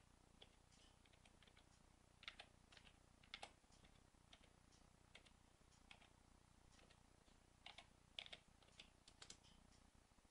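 Faint keystrokes on a computer keyboard: irregular clicks of a command being typed, with a few louder clusters of keys.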